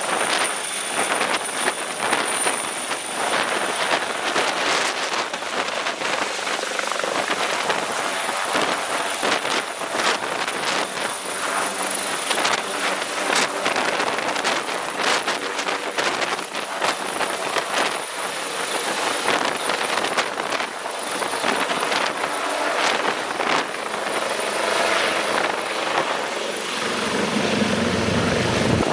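Helicopter running close by: a dense, rapid rotor chop with a steady high whine over it. Near the end a lower hum swells louder.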